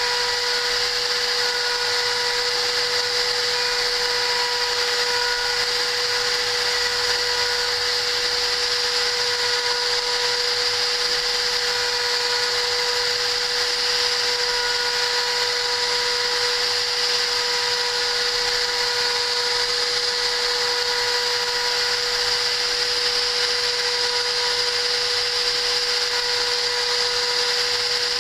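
CNC machine's spindle motor running at a constant high speed: a steady whine over a hiss, with no change in pitch or level.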